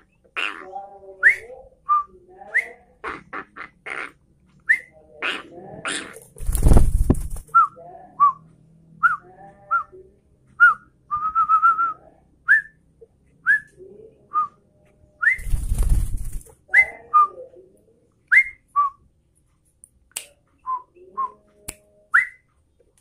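Yellow-vented bulbul (trucukan) calling: many short, rising whistled notes in quick succession with some lower chattering. Two brief rushing noises break in, about 7 and 16 seconds in.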